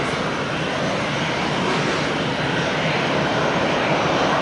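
Airbus A380's four turbofan engines at taxi power: a steady rushing jet noise that grows slightly louder near the end.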